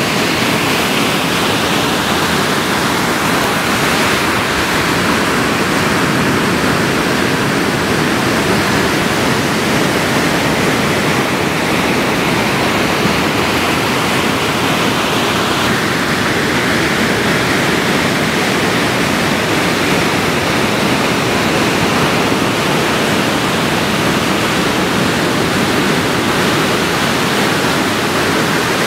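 Steady rushing wash of ocean surf, an even noise with no distinct wave crashes standing out.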